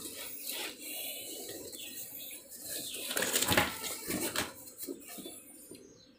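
Faint rustling and a few light knocks from a cardboard pressure washer box being handled.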